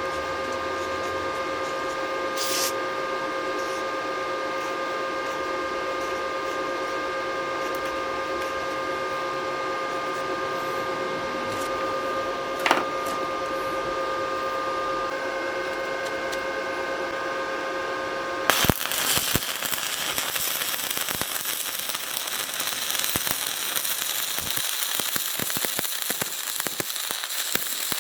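A steady electrical whine of several fixed tones over a hiss, then about two-thirds of the way through a sudden onset of dense, irregular crackling: an electric arc-welding arc burning.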